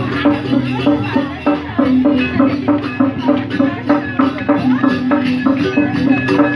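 Balinese gamelan music for a temple procession: a dense stream of rapid, sharp percussion strikes over sustained low ringing tones.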